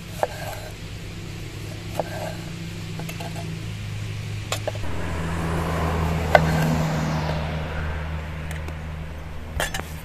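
Kitchen knife slicing through tomatoes and knocking on the wooden cutting board: a handful of sharp taps a second or two apart, the loudest about six seconds in. A steady low hum runs underneath and shifts pitch about halfway through.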